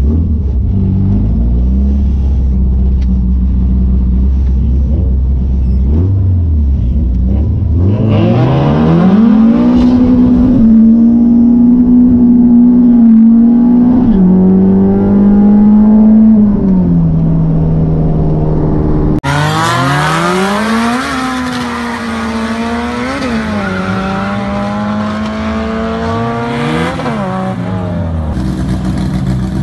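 Honda Civic EK's B-series race engine heard from inside the car. It runs low and steady at first, then about eight seconds in it climbs hard in pitch under acceleration and holds high revs, with drops at the shifts. After a cut near the end, a B20-engined Honda Civic and another tuned car rev at the line, the pitch rising and falling over and over.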